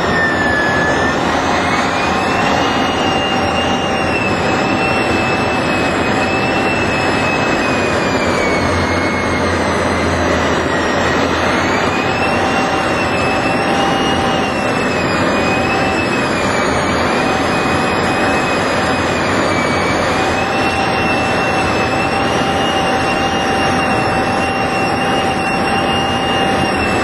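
Jet engine running steadily in flight: a loud, even rush with a high whine that slowly wavers in pitch.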